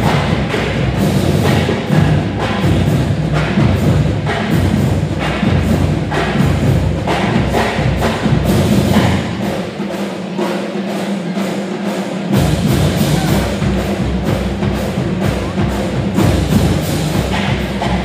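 Background music with a heavy, steady beat. The bass drops out for about two seconds near the middle, then comes back in.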